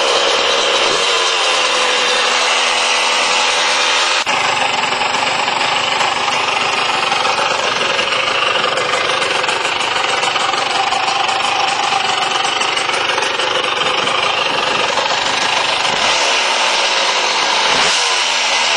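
Highly modified 1984 Honda 250R engine, a liquid-cooled two-stroke single, running continuously in an ATC 70 three-wheeler, with its pitch shifting a few times near the end.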